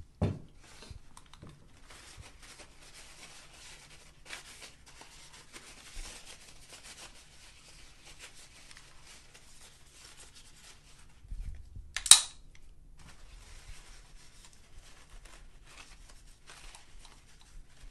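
Paper towel rustling and rubbing against a pistol slide as it is wiped down, with a low knock at the start and one short, loud, sharp noise about twelve seconds in.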